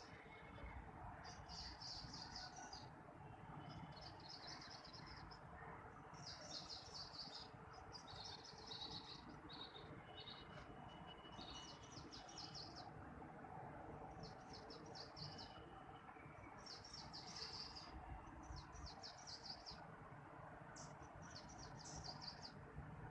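A bird calling faintly in short, high, rapid trills, each about a second long, repeated about a dozen times over a low steady background hiss.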